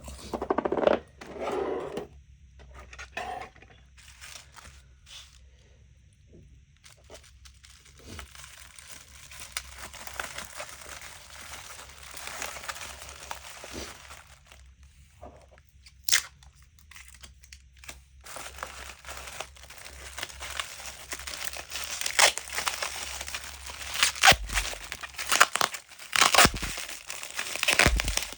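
Crinkling and tearing handling noise that comes and goes. It grows denser and louder in the last third, with several sharp knocks near the end.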